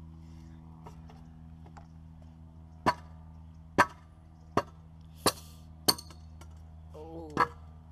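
A stunt scooter's cracked deck slamming repeatedly as the rider stomps and bears down on it, trying to snap it: six sharp bangs less than a second apart, starting about three seconds in.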